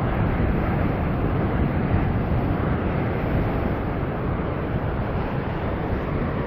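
Heavy surf breaking and washing over rocks, a steady rushing noise, with wind buffeting the microphone.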